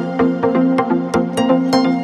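Background music: an electronic track with sustained tones over a steady beat.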